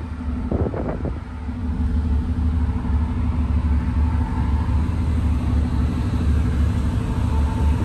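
Steady low rumble and hum of a cruise ferry's machinery heard on its open deck at sea, with a few steady droning tones over it. A short rush of wind-like noise comes in the first second.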